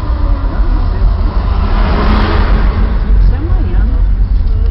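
A car driving at low speed, heard from inside the cabin: a steady low engine and road rumble, with a broad rush that swells about two seconds in and fades again.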